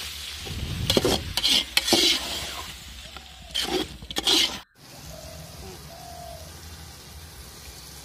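Steel ladle stirring and scraping eggplant gravy in a large metal pot, the frying mixture sizzling, in several loud scraping strokes. The sound breaks off abruptly about four and a half seconds in, leaving a quieter steady hiss.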